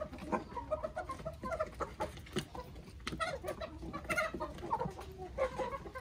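A flock of chickens clucking, many short calls overlapping one another without a break.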